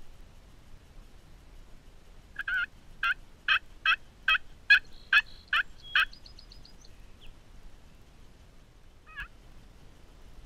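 Wild turkey calling: a run of nine loud yelps, about two a second, then one softer single note near the end.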